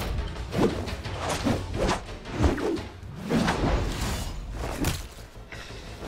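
Fight-scene soundtrack: music under a string of whooshes and thuds from kicks and blows, about five sharp hits roughly a second apart.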